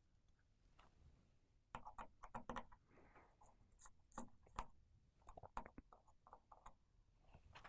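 Faint, scattered clicks, taps and light scraping of a precision screwdriver and tiny screws being removed from the battery connector shield inside an opened iPhone.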